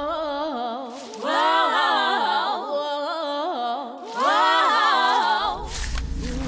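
Wordless a cappella singing: voices hold long notes with vibrato in three phrases. A low rumble comes in near the end.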